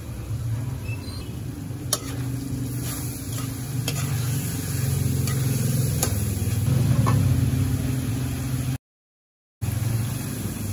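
Pumpkin and beef frying in a wok as they are stirred, the food sizzling over a steady low hum, with a few sharp clicks of the spatula against the pan. The sound cuts out briefly near the end.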